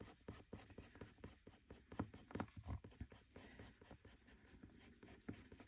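Faint scratching of a coloured pencil on paper in many short, quick shading strokes, several a second and uneven in strength.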